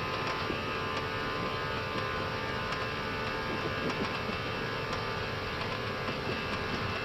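Airbus A320 cockpit during the takeoff roll: a steady noise from both engines at FLEX takeoff thrust, airflow and the runway, with a faint steady hum underneath.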